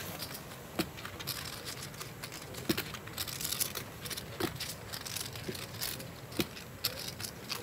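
Poker chips clicking as players handle them at the table: a scatter of irregular light clicks, with a few sharper ones spaced about two seconds apart.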